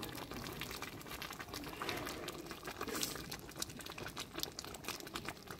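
Thick dried-fig jam boiling in large pots over an open wood fire: a steady run of irregular pops and crackles.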